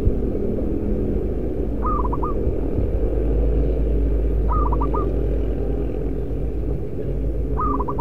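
Zebra dove (perkutut) cooing: three short phrases of four or five quick notes each, about every three seconds, over a steady low rumble.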